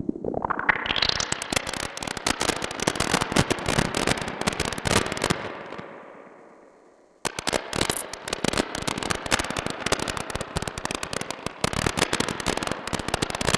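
Moog Mother-32 synthesizer voice driven by the Mr. Grassi rungler module: a dense, chaotic crackling stream of very short notes, a granular rhythmic texture, its pitch modulated by one rungler and its envelope triggered by another slowed through a rotating clock divider. It brightens in the first second, fades out about six seconds in, and starts again abruptly a little after seven seconds.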